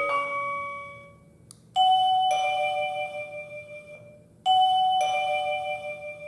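OHM OCH-R40 wireless call chime: an electronic melody dies away in the first second. Then a two-note falling ding-dong rings out twice, about three seconds apart, each note ringing on after it is struck.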